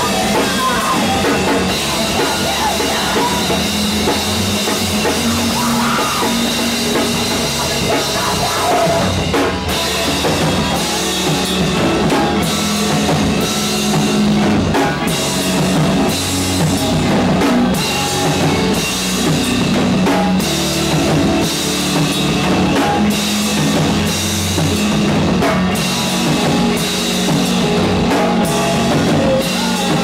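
Live rock band playing loud: a drum kit with cymbal crashes keeping a steady beat under electric guitars. The drum hits stand out more from about a third of the way in.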